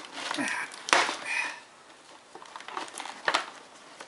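Hands handling the packaging of a boxed RC truck: rustling and clicks of plastic and cardboard, with a sharp knock about a second in and another a little after three seconds.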